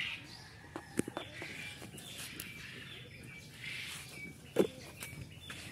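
Small birds chirping and twittering in the background, short high notes coming again and again. A few sharp taps cut through, the loudest about four and a half seconds in.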